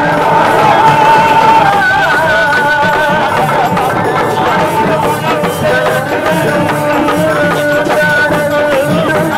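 Tamil devotional music: a wavering, sustained melody line over a steady drum beat, with no singing.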